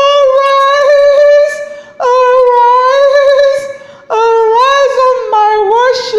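A woman singing wordless high notes: three long held phrases of about two seconds each, the pitch wavering slightly and bending up and down in the last one.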